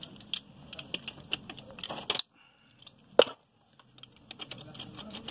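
Ratchet wrench clicking as the bolts of a scooter engine's cam chain tensioner are worked loose: a run of quick, irregular ticks, a short pause, one loud sharp click about three seconds in, then more ticking.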